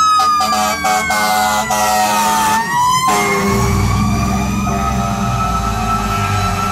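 1982 Hahn fire engine passing close on a run, its siren wailing. The wail slides down in pitch and winds back up about three seconds in, with short repeated siren blasts early on. The truck's Detroit Diesel 8V71 engine rumbles loudly from about halfway as it goes by.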